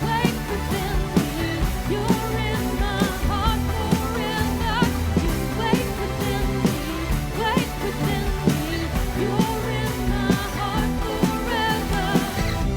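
Contemporary worship song played by a live band with a steady drum beat and a sung melody.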